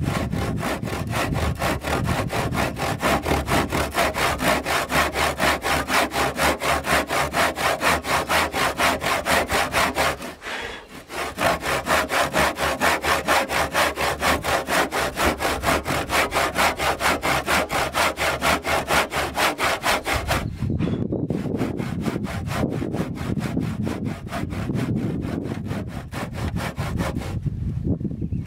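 Handsaw cutting across a timber beam along the marked line of a dovetail, in fast, even back-and-forth strokes. There is a short pause about ten seconds in, and from about twenty seconds the strokes sound deeper and duller.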